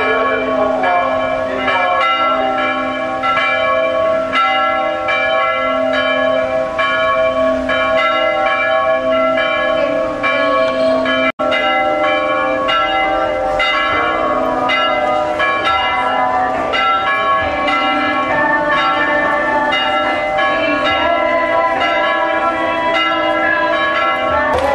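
Church bells pealing from a bell tower: several bells struck over and over in a steady rhythm, their ringing tones overlapping without a break.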